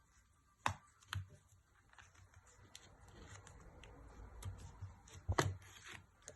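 A few short, sharp clicks and taps from an opening pick working around the iPhone XR's screen as it is pried off the frame, the loudest pair near the end.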